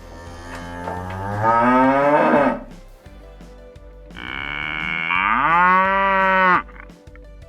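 A cow mooing twice in two long calls; the second call rises in pitch. Light background music plays underneath.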